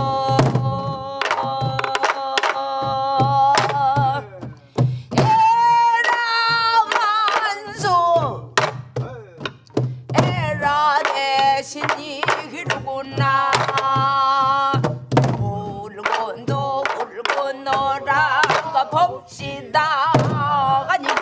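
A woman singing pansori in long, wavering held notes, accompanied by a group of buk barrel drums struck with sticks in the jungjungmori rhythm: low drum thuds and sharp stick clacks.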